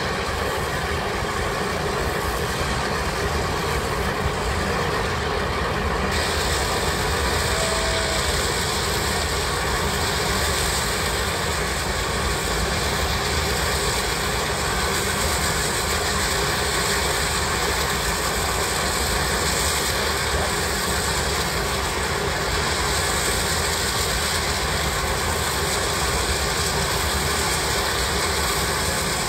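Steam shovel working hard at its stack, throwing sparks: a steady rushing exhaust with no distinct beat, whose hiss grows louder and brighter about six seconds in.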